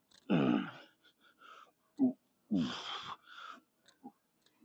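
A man grunting and exhaling hard while straining through reps of a heavy lifting set: four loud, breathy, voiced exhalations, each falling in pitch, about a second apart, with quieter breaths between.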